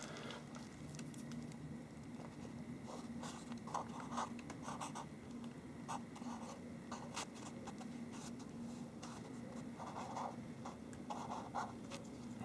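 Marker pen scratching on a paper sticky note as figures are written, in short strokes with pauses, over a faint steady low hum.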